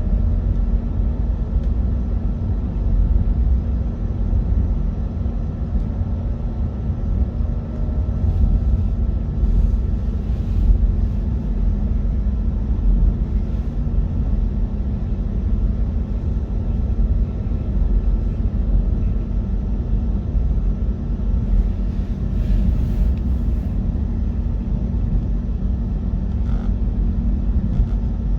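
KTX-EUM electric train running, a steady low rumble with a faint steady hum above it.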